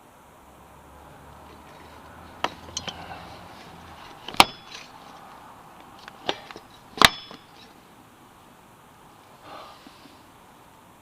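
A bike fork turned upside down, with a PVC pipe over its steerer tube, smacked onto concrete to drive the crown race down onto its seat. About five sharp smacks, the two loudest about two and a half seconds apart, each with a brief metallic ring.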